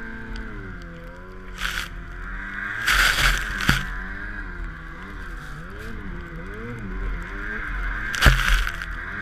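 Snowmobile engine revving up and down as it ploughs through deep powder, its pitch wavering constantly. Short loud rushes of noise from snow spraying over the machine come about three seconds in and again just after eight seconds.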